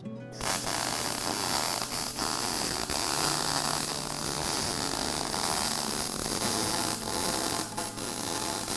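Arc welder laying a bead: a continuous crackling hiss that starts just after the beginning and runs on without a break, over a low steady hum. This pass burns through the metal.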